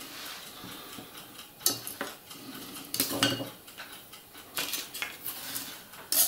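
Light clinks, taps and scraping from a length of plastic-and-metal H0 model railway track and a small hand tool being handled and worked on a hard worktable. There are sharper clicks about one and a half, three and six seconds in.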